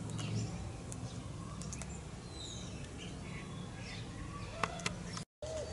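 Birds calling: scattered faint chirps and short whistles, then a dove cooing near the end, over a steady low background hum. The sound drops out for a moment just before the end.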